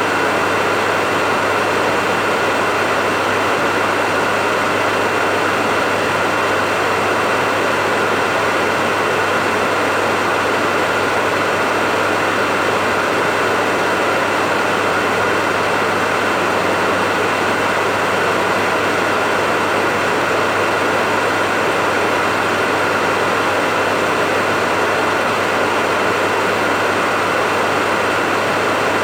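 Hair dryer running continuously with a steady whoosh of air and a constant motor hum, used as white noise.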